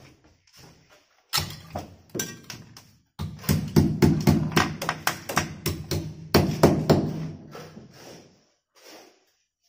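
Hammer blows on an aluminium window frame, driving small nails to fix it into the wall opening. There are a few scattered knocks at first, then a quick run of about three blows a second that stops shortly before the end.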